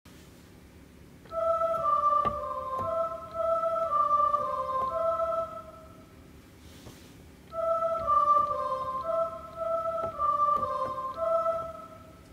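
Electronic keyboard playing a simple melody in a soft, flute-like tone: a short phrase of held notes, then the same phrase again after a pause of about two seconds.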